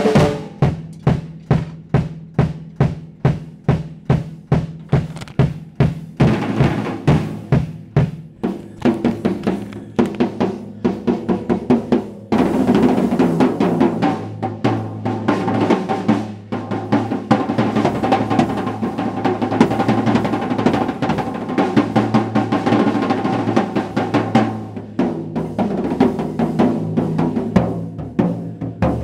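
Acoustic drum kit played solo with sticks and bare hands on snare, toms and bass drum. The first part is a steady beat of evenly spaced hits. About twelve seconds in it breaks into fast, dense rolls with the toms ringing, then thins back to separate hits near the end.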